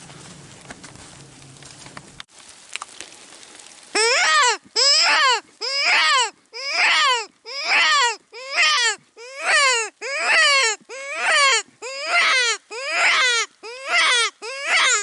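Predator call sounding a wailing prey-distress cry to lure coyotes: about eleven loud cries, each falling in pitch, roughly one a second, starting about four seconds in.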